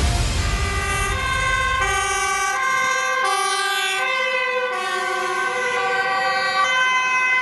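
Two-tone sirens of fire-service vehicles, switching back and forth between a high and a low note, with more than one pattern overlapping. Music fades out under them during the first couple of seconds.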